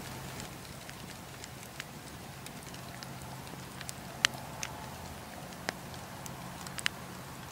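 Wood campfire burning, crackling over a steady low rush, with scattered sharp pops from the burning logs; the loudest pop comes a little past the middle.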